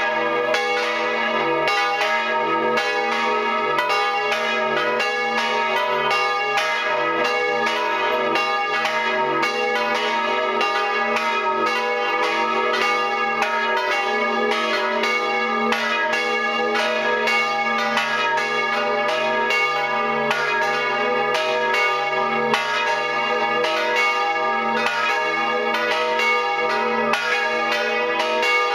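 Full peal of three swinging church bells tuned to D-sharp, G-sharp and B, heard close up inside the belfry. The clapper strikes come several times a second in an irregular, overlapping sequence, each strike ringing on under the next.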